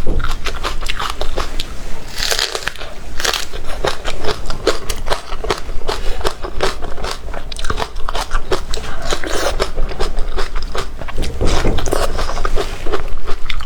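Close-miked eating sounds: a person biting and chewing crunchy food in quick, irregular crisp crunches, with the mouth noises close to the microphone.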